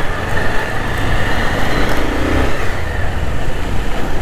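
Motorcycle riding in slow, congested traffic: its engine running under steady road and traffic noise.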